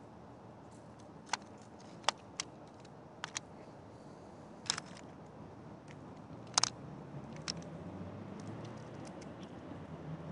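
Scattered sharp clicks and taps, about nine of them at irregular intervals, over faint room noise. A low hum grows louder in the second half.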